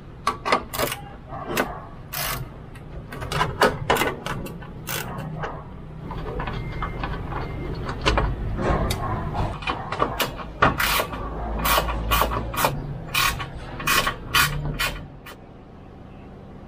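A 10 mm wrench clinking on licence-plate bolts and the metal plate knocking and rattling as it is unbolted and lifted off the bumper: a run of sharp, irregular clicks and clanks. A quieter steady hum runs under them, and the clicks stop about a second before the end.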